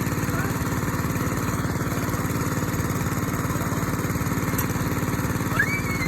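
A small engine running steadily with an even, fast low chug. A few short high chirps come in near the end.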